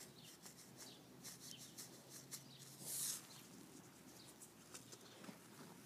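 Near silence, with faint light ticks and rustles and a brief soft hiss about three seconds in: a paper seed packet and fingers being handled as tiny marigold seeds are sprinkled.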